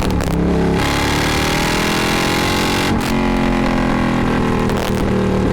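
Triumph Thruxton R's parallel-twin engine through Meerkat race mufflers, accelerating hard. The pitch climbs steadily and drops briefly at a gear change about three seconds in, then climbs again.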